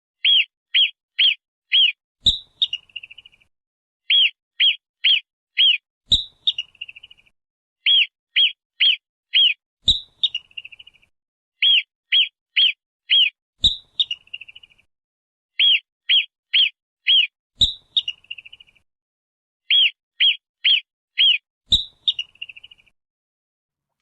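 Marmot alarm calls: groups of four short, high chirps, each ending in a sharp click and a brief rattling trill. The same sequence repeats six times, about every four seconds.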